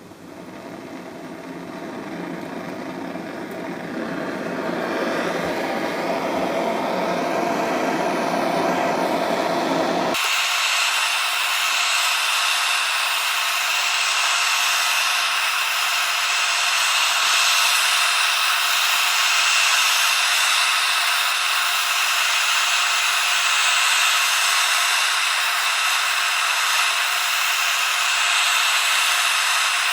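Heat gun blowing steadily, heating the spindle nose to loosen thread lock. The noise builds over the first few seconds, then about ten seconds in changes abruptly, losing its low rumble and leaving a higher hiss with a faint whine.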